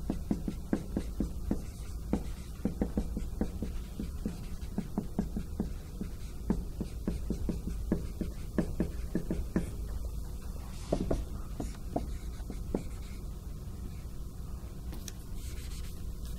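Marker writing on a whiteboard: a quick run of short taps and strokes as equations are written, dense for about ten seconds and then more scattered.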